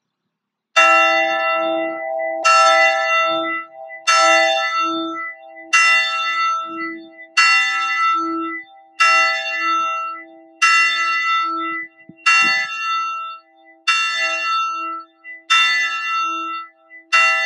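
A single church bell in a bell tower tolling: eleven evenly spaced strikes about a second and a half apart, each at the same pitch, ringing on and fading before the next.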